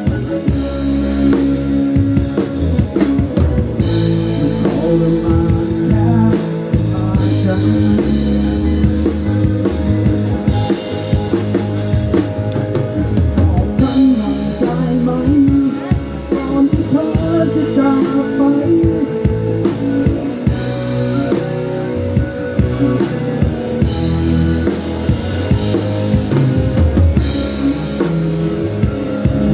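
Live rock band playing: a drum kit with kick, snare and rimshot hits under sustained guitar and bass notes.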